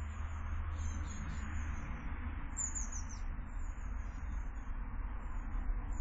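Small garden birds giving short, high chirps several times, with one brighter falling call about two and a half seconds in, over a steady background rumble and hiss.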